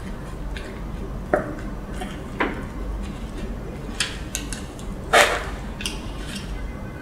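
Table knife and fork cutting through a crisp toasted egg sandwich: a series of about six sharp crunches and scrapes of the blade through the toast, the loudest a little past five seconds in.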